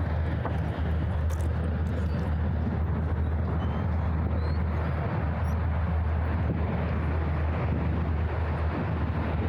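Steady low rumble of distant city traffic with an even hiss over it, unchanging throughout.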